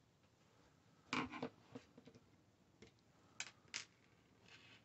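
Masterclip Hunter horse clipper parts being handled and pulled apart: a short clatter of plastic and metal about a second in, then a few sharp clicks, two close together past the middle, and a brief light scrape near the end.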